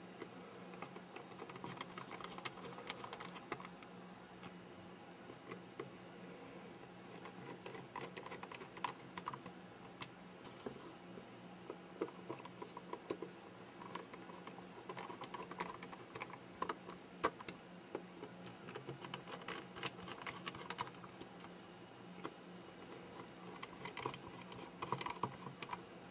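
Faint, irregular small clicks and ticks of a precision screwdriver and tweezers working tiny screws into the plastic back cover of a Canon PowerShot SX60 HS lens assembly, with one sharper click about ten seconds in.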